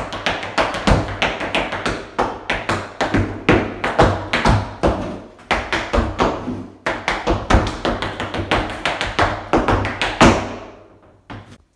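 Tap shoes' metal taps striking a dance floor in a fast, irregular rhythm of shuffles, steps and heavier stomps, several sounds a second. The tapping thins out and stops about ten and a half seconds in.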